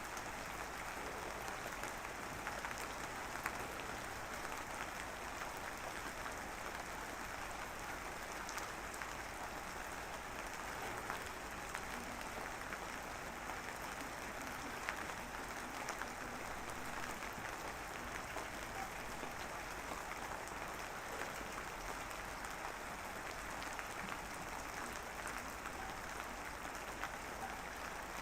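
Light rain drizzling steadily, a dense patter of fine drops with scattered sharper ticks.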